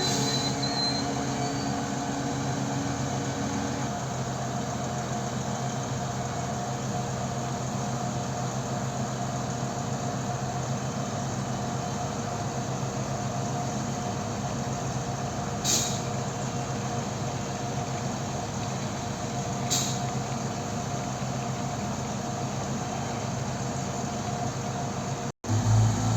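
Diesel railcar running steadily, a constant engine hum, with two short clicks about four seconds apart in the latter half.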